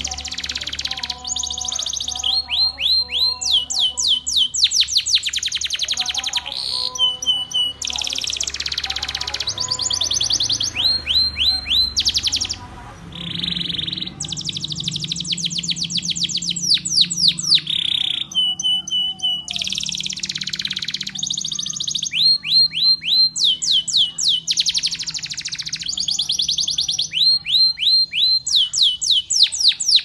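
Canary singing a long, continuous song of fast trills and rolls. Each run is a rapid string of the same high, sweeping note, and the pattern changes every second or two, with a brief break about twelve seconds in.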